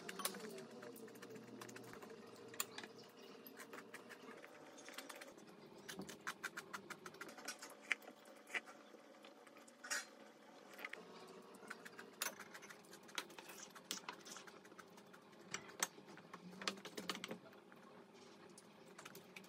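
Eating sounds: chopsticks and a spoon tapping and clinking irregularly against bowls and plates, a scatter of small clicks.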